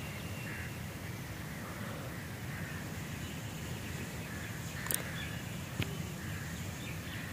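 Steady wind rumbling on the microphone, with faint bird calls now and then and two soft clicks about five and six seconds in.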